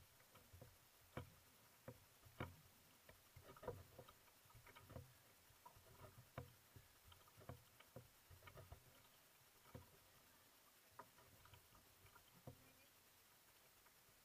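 Faint splashes and knocks of paddle strokes on a single outrigger canoe: the paddle blade dipping into and leaving the water and the shaft tapping the hull, irregularly, about one sharp sound every second, thinning out near the end.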